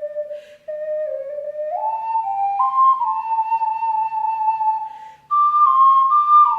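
Alto C ocarina playing a slow melody in clear held notes that step up and down, with two short pauses for breath, about half a second in and about five seconds in.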